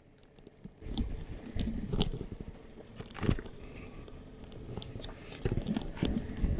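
Motorcycle tyres crunching over a loose gravel road, with irregular clicks and pops of stones under a low rumble, starting about a second in.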